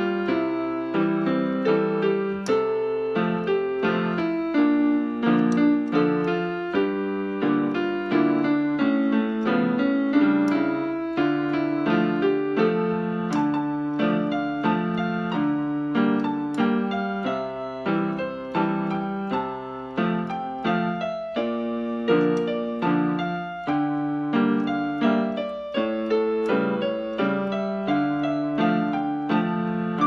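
Yamaha PSR-175 portable keyboard on a piano voice, played with both hands: a slow melody over an oom-pah-pah waltz accompaniment in three, a low bass note followed by two chords each bar. Light clicks of fingernails on the keys are heard here and there.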